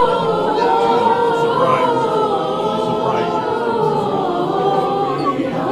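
Choral singing: several voices holding long notes together that drift slowly in pitch.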